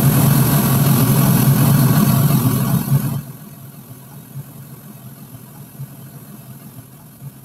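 Pink noise test signal played through a small wall-mounted loudspeaker with a 5-inch horn, heard in the room as a steady hiss, strongest in the low range, used as the measurement signal for comparing two microphones. It cuts off sharply about three seconds in, leaving faint room noise.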